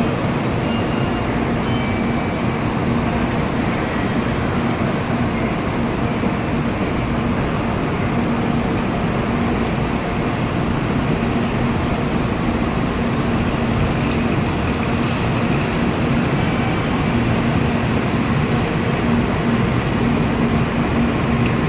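Shinkansen bullet train moving slowly along a station platform, a steady noise with a constant low hum and a high hiss.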